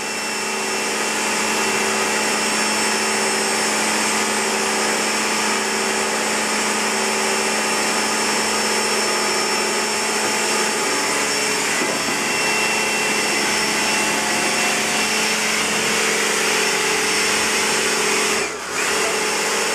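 Electric pressure washer running steadily, its motor and pump humming under the hiss of the spray. It dips out briefly about a second before the end, then runs on.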